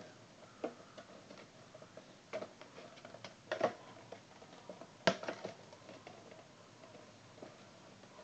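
Cardboard toy box being handled and worked at by hand: scattered clicks and crinkles, the loudest about three and a half and five seconds in, with quieter taps between.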